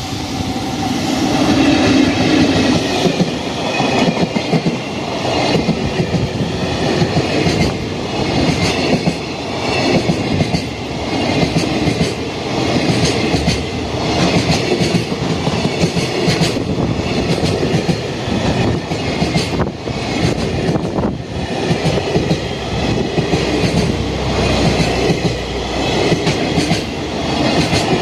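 Freight train hauled by an EF65 electric locomotive passing at a level crossing, a long string of wagons rumbling by with wheels clattering over rail joints. The level-crossing alarm rings over it, and it is loudest in the first few seconds.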